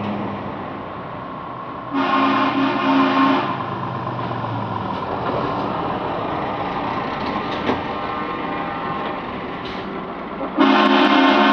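Trucks driving past with diesel engines running and tyres on the road. About two seconds in, a multi-tone truck air horn sounds for about a second and a half. Near the end a louder air horn starts and holds.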